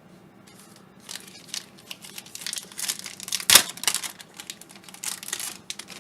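A 2007 Donruss Classics Football card pack's wrapper being torn open and crinkled by hand. It is a run of crackly rustles, with one sharp, loud crackle about three and a half seconds in.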